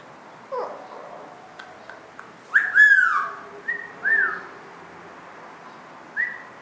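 Short whistles traded between a woman and a pet green parrot: a falling whistle, then loud arching whistles with a harsher, raspy call about three seconds in, and a few more short whistles after.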